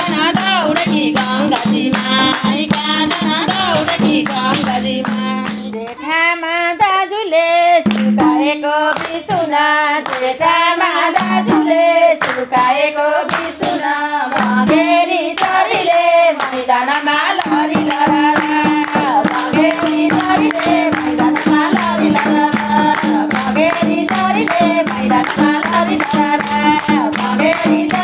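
A group sings a Nepali Teej folk song together, accompanied by hand clapping, a madal hand drum and a tambourine.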